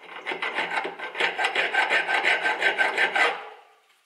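Flat hand file worked quickly back and forth across a small steel piece clamped in a bench vice, about five strokes a second, stopping a little past three seconds in.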